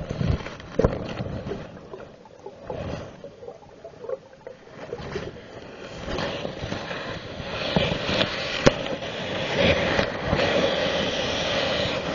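Underwater camera moving through water, picking up muffled rushing water with scattered knocks and scrapes. The rushing gets louder about halfway through.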